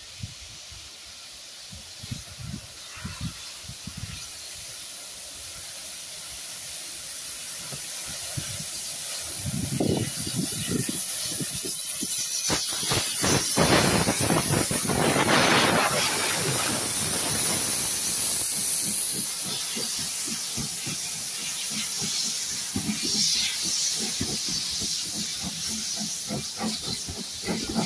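Steam locomotive hauling a train of passenger coaches approaches and passes close by, growing louder to a peak of steam hiss and rolling wheels about halfway through, then the coaches rumble and clatter past on the rails.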